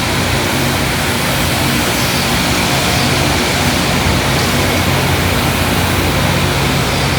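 Loram rail grinder at work: its grinding stones on the rail make a loud, steady hiss over the constant low hum of its engines.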